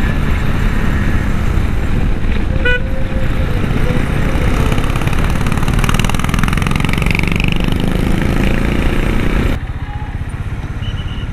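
Motorcycle engine running at road speed with heavy wind rush on the microphone, and a short horn toot about two and a half seconds in. About nine and a half seconds in the wind noise suddenly drops and the engine is heard at low speed.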